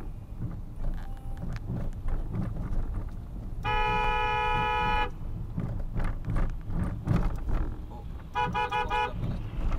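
Vehicle horns in traffic: one long horn blast lasting about a second and a half, then four quick short toots near the end, over the steady low rumble of road and engine noise from a moving vehicle.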